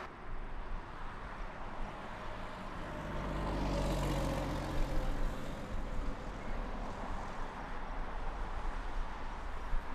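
Steady low rumble of highway traffic, swelling as a vehicle passes about four seconds in and then settling back.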